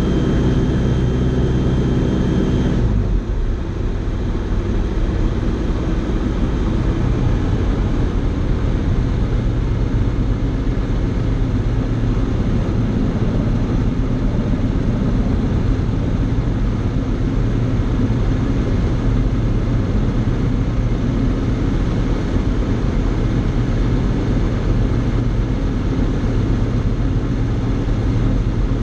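Fly Synthesis Storch S ultralight's engine and propeller running in flight, heard from inside the cockpit together with the rush of air past the cabin. About three seconds in, the steady engine note changes and turns rougher and less tonal, then holds steady.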